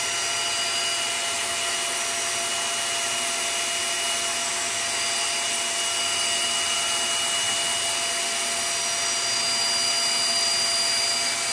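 Steady whirring with constant high-pitched whines over it, from a homemade 12-MOSFET power inverter and its cooling fan running under a heavy load of about 1600 watts, about 85 amps from a 24 V battery bank.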